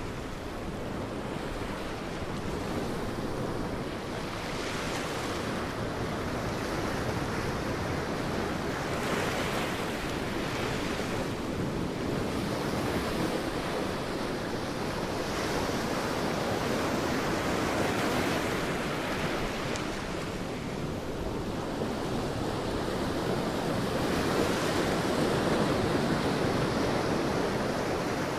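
Sea waves breaking and washing on a beach, a continuous surf wash that swells and eases every few seconds, with some wind.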